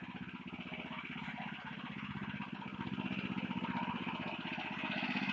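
Weima 13 hp single-cylinder petrol engine of a Motor Sich walk-behind tractor converted to a ride-on, running steadily as the machine drives along. It gets louder about three seconds in as it comes closer.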